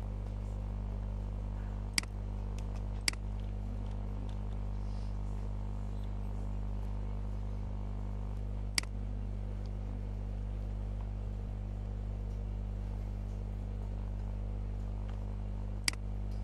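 Steady low electrical hum, with four sharp computer-mouse clicks: two close together about two and three seconds in, one near the middle, and one near the end.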